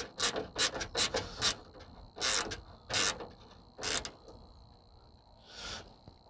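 Short mechanical clicks and scraping strokes from hand work on the truck: about six quick ones in the first second and a half, then three longer scrapes a little under a second apart, and a faint one near the end.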